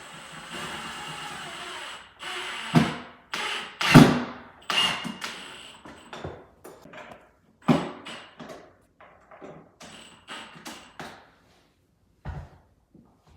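Carpentry work sounds while fitting closet doors: about two seconds of a steady tool-like running noise, then a string of sharp, irregular knocks and clatter, the loudest about four seconds in.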